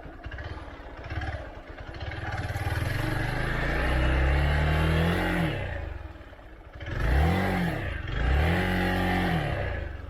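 Hero Xpulse 200T single-cylinder motorcycle engine revving three times. The first is a long rise in pitch that drops off past the middle, then comes a short blip, then another rise held near the end.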